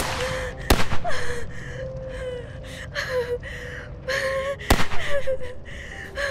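A person sobbing in short gasping cries of grief. Two sharp bangs cut through it, about a second in and again near five seconds.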